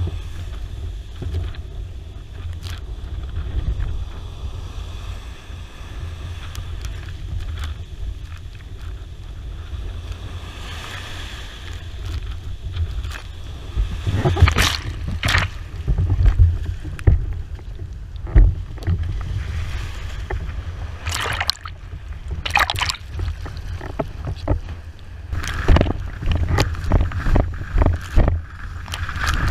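Wind buffeting the microphone as a 81-litre wave board with a 4.2 m² sail planes fast over choppy sea, a steady low rumble throughout. Sharp bursts of spray and chop slap against the board, a few from about halfway through and more often near the end.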